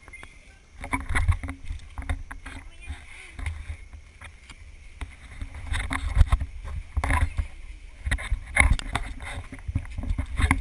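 Low rumble and irregular knocks from an action camera being handled and carried about, rubbing and bumping in its mount, with people's voices in the background.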